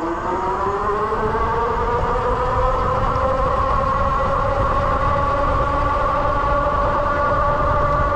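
Ariel Rider X-Class e-bike's electric motor whining. The whine rises in pitch for about the first three seconds as the bike speeds up, then holds steady, over a low rumble of wind on the microphone.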